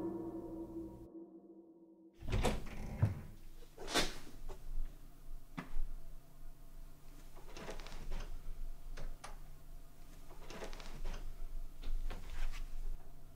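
Music fading out, a second of dead silence, then a bedroom door clicking and knocking open, followed by quiet footsteps and rustling as someone walks slowly into the room.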